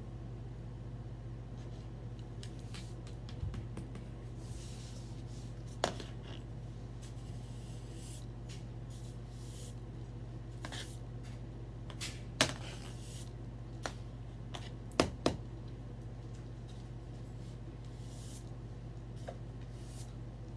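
Small objects being handled and set down: scattered light clicks and knocks, two in quick succession past the middle, with soft rustling over a steady low hum.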